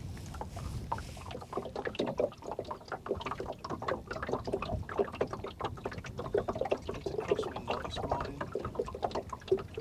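Small wind-driven waves lapping and slapping against the side of a small boat, an irregular patter of little splashes that grows busier after the first second, over a low rumble of wind.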